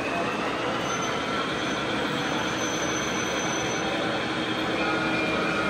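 Model trains running on an exhibit layout: a steady rolling rail noise with faint, thin high tones above it.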